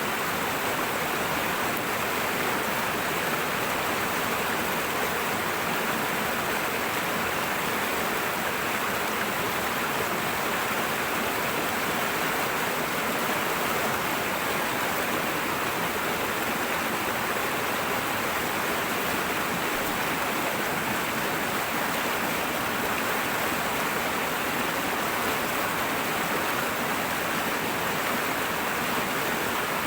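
Fast-flowing river rushing and splashing over rocks, a steady, unchanging water noise.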